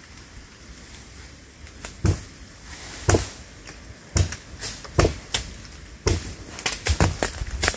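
A run of sharp, irregular knocks and cracks, starting about two seconds in and coming faster towards the end.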